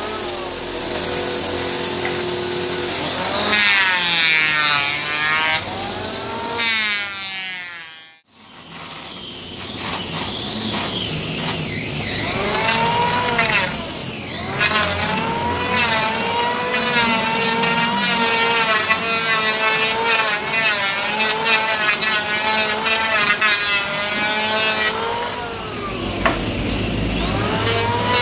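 Power tool's electric motor running under load on wood, its whine repeatedly rising and falling in pitch with clicking and scraping over it. It breaks off abruptly about eight seconds in, then runs on.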